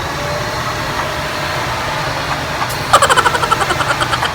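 Imarflex bagless cyclone handheld vacuum cleaner's motor running with a steady whir. About three seconds in, a fast rattling run of clicks lasts just over a second.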